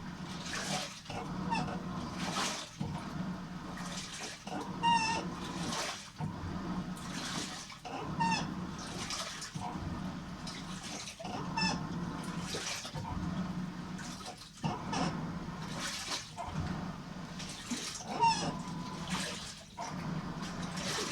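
Washing machine agitating, water sloshing in strokes that reverse about every second and three-quarters, with a high squeaky cry on many strokes that sounds almost like a moan: an abnormal noise from the machine.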